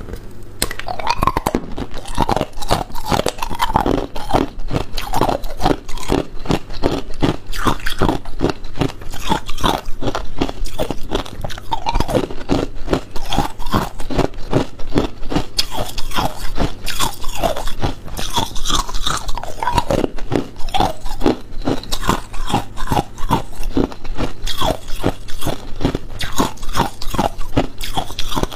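Ice being bitten and chewed close to the microphone: a rapid, continuous run of loud, crisp crunches.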